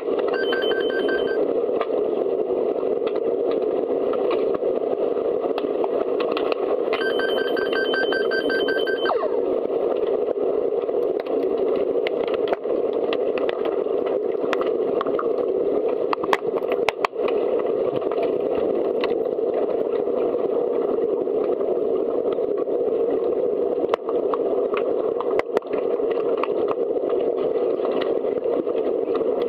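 Underwater hockey game sound: a steady muffled rush of water noise with scattered sharp clicks and knocks. Twice, about a second in and again around seven seconds in, comes a short burst of rapidly pulsing electronic beeps, typical of a referee's underwater sounder stopping play.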